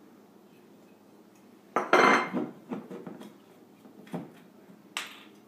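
White ceramic plates and a bowl clattering as they are set down on a kitchen counter: a loud clatter about two seconds in, then a few lighter knocks.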